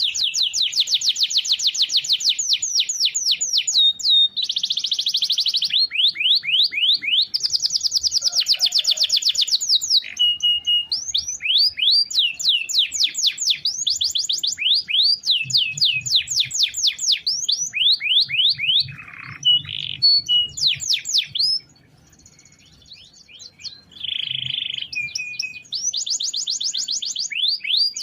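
Domestic canary singing a long song of rolling trills: runs of fast repeated notes, each run switching to a new note type, with a short break about three-quarters of the way through.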